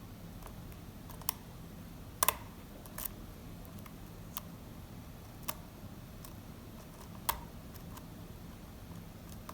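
Sharp, irregular clicks and ticks of a lock pick working the pins of a pin-tumbler challenge lock under light tension, about six louder clicks with fainter ticks between, over a low steady hum.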